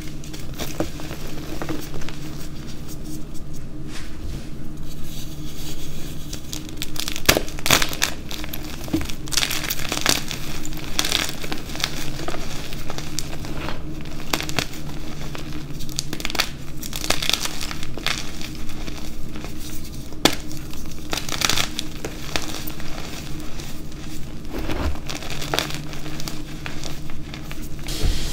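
Hands crushing blocks of dyed gym chalk and crumbling the pieces into a pile of loose powder: many short, sharp crunches and crackles over soft powdery rustling.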